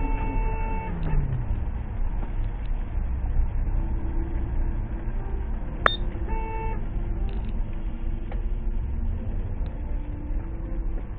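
Car horn sounding twice: a long blast that cuts off about a second in, and a short toot about six seconds in, with a sharp click just before it. Under it, steady road and engine rumble from inside a moving car.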